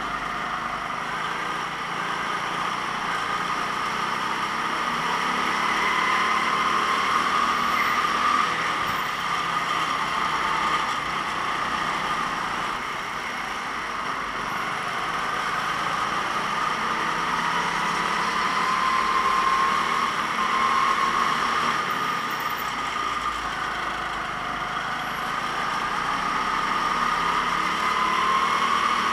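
Kart engine running at racing speed, with no let-up. Its pitch climbs in long rising glides several times, and its level swells and dips as it accelerates and eases off around the track.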